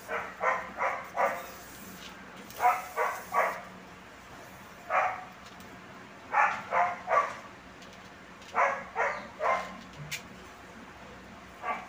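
A dog barking repeatedly in quick runs of three or four barks, with pauses of a second or two between the runs.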